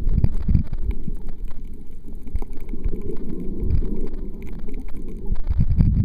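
Muffled underwater water noise heard through an action camera's waterproof housing: a low rumbling wash of moving water with irregular dull thumps, louder near the end.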